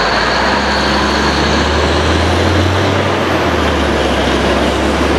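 Truck-mounted borewell drilling rig running hard, its diesel engine making a loud steady noise. The engine's low hum shifts in pitch about two to three seconds in.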